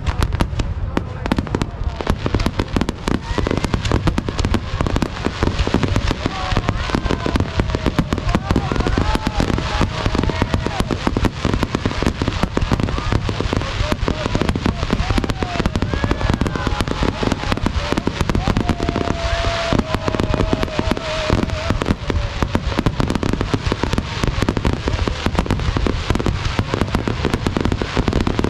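Fireworks display at full intensity: aerial shells bursting in rapid, near-continuous succession, many bangs a second running together with crackle.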